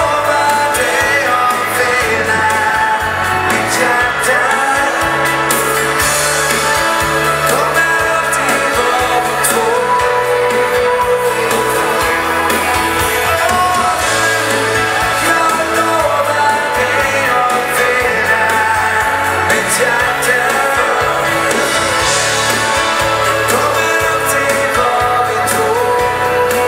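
Live dansband playing a foxtrot: a singer over a steady bass line and a regular dance beat.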